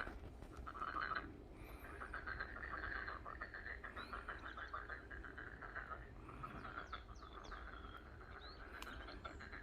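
A chorus of frogs calling in overlapping pulsed trills, with a few short high chirps mixed in near the middle and end.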